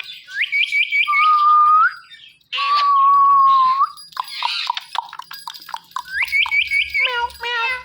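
Ringneck parrot calling. It gives a quick run of short rising chirps, then two long steady whistles, then a harsh squawk, then more rising chirps. Near the end comes a run of short repeated calls.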